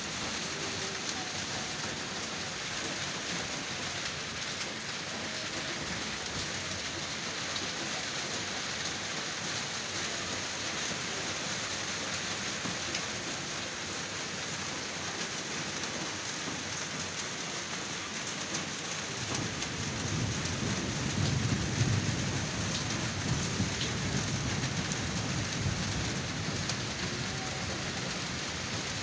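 Heavy rain falling steadily, an even hiss. About two-thirds of the way through, a low rumble of thunder builds under the rain and keeps rolling to the end.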